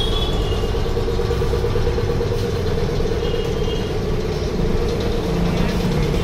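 A steady mechanical hum of an engine or motor running at an even pitch, unchanged throughout.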